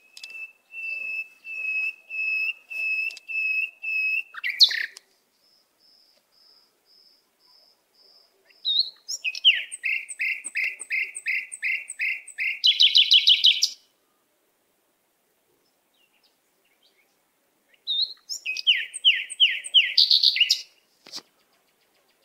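Songbird singing clear whistled notes. First comes an evenly spaced run of about eight steady notes, then after a softer stretch a phrase of quick down-slurred notes ending in a fast trill, and a similar phrase again near the end.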